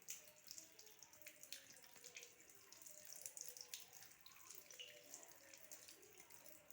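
Faint tap water running and splashing irregularly as a front-load washing machine's drain filter is rinsed under it.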